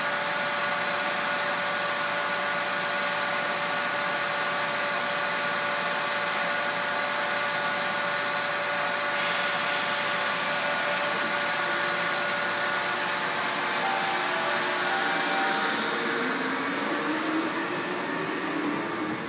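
Seoul Metro Line 1 retrofitted resistor-controlled electric train standing at the platform, its onboard machinery and rooftop air-conditioning fans giving a steady whir with several held tones. About three seconds before the end the traction motors begin a whine that rises in pitch as the train starts to move off.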